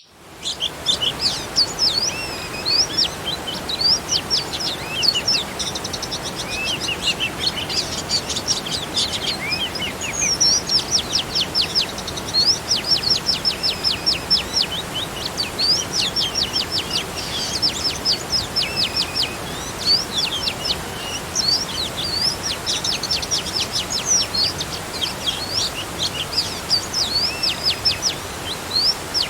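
Songbirds chirping and trilling continuously, in quick runs of short repeated notes, over the steady rush of a small garden waterfall.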